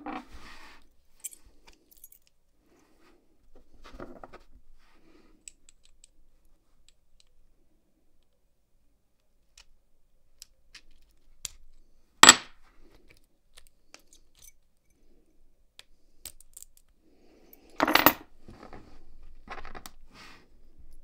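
Sparse small metallic clicks and taps of a brass padlock plug, pin tumblers and tools being handled on a bench during lock reassembly, with two louder sharp clinks, one about midway and one near the end.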